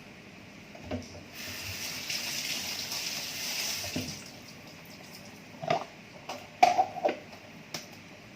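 Water running for about three seconds, starting about a second in, followed by a few short knocks and clatters.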